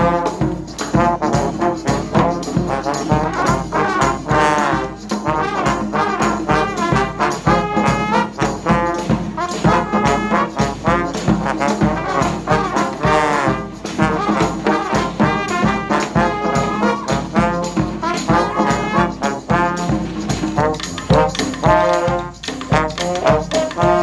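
A New Orleans-style street brass band playing: trumpets and trombones over a low sousaphone line, with a steady beat.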